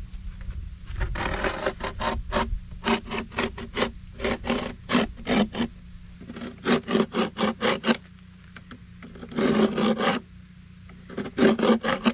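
Utility knife scoring cement board along a metal level used as a straightedge: runs of quick, repeated scraping strokes, about three or four a second, broken by short pauses.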